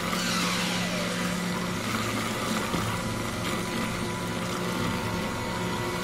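Engine-driven wood chipper running steadily under load as it is fed, a continuous mechanical drone with a low hum and a whine that slides down in pitch in the first second.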